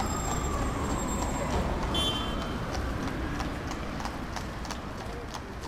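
Evenly paced clopping steps, about two to three a second, over a steady low rumble, fading out near the end.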